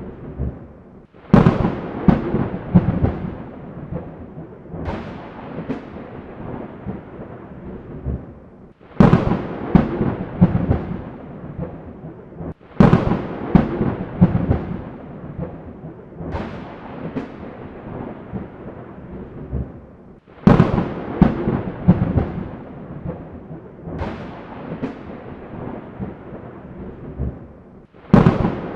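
Thunder from a storm: five sharp claps break in suddenly, each one crackling and then fading into rumble. Smaller rumbles fall between them, over a steady low background noise.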